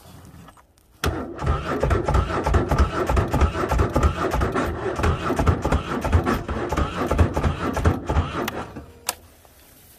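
Polaris ATV engine cranking on its electric starter in about 3°F cold without firing: a steady rhythmic chugging with a starter whine that runs about eight seconds, then stops, followed by a single click. The cold-soaked engine won't catch.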